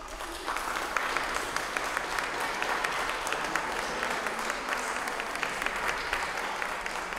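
An audience of guests applauding: many hands clapping together, steady and tailing off near the end.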